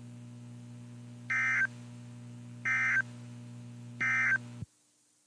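Three short electronic beeps, evenly spaced about a second and a half apart, over a steady low electrical hum; the hum and all sound cut off abruptly near the end.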